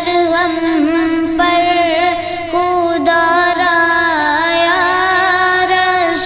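Background music: a song with a singing voice holding long, wavering notes.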